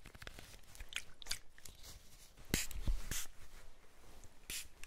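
A plastic trigger spray bottle is spritzed toward the microphone a few times in short hissing bursts. Small clicks and rubbing come from nitrile gloves handling the bottle.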